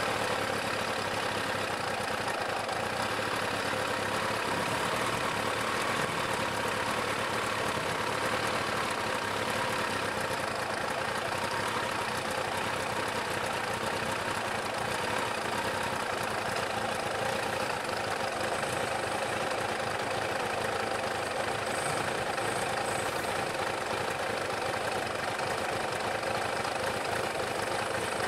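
Sport motorcycle's engine idling steadily while the bike stands still, heard close up from a camera mounted on it.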